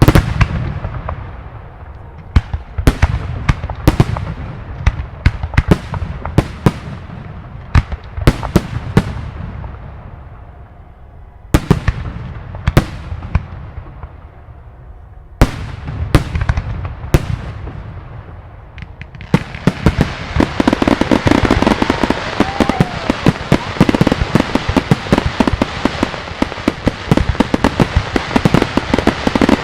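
Aerial firework shells bursting in a display: a run of sharp separate bangs, each with a low rolling echo. About 19 seconds in, it turns into a dense barrage of rapid bangs and pops that keeps going.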